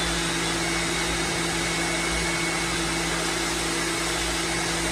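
Lavor Fast Plus 130 electric pressure washer running with the trigger held: its motor and pump give a steady hum under the hiss of the water jet from a fan-spray nozzle.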